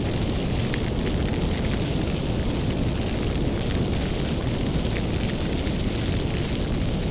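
Wood fire burning steadily: a low, even rumble of flames with scattered small crackles and pops.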